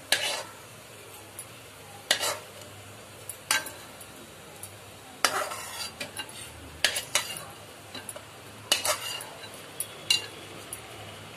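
Steel spoon scraping and clinking against the pan as fried cashew pieces are scooped out of the oil and dropped into a steel bowl, a stroke every second or two, with faint sizzling of the oil between them.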